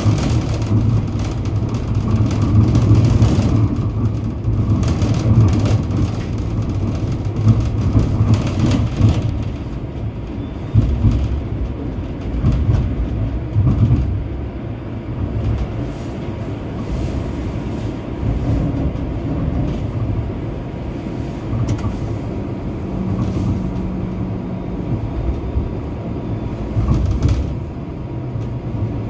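Bombardier Flexity Outlook streetcar running along its track, heard from inside the car: a steady low rumble of the wheels on the rails, with scattered short knocks.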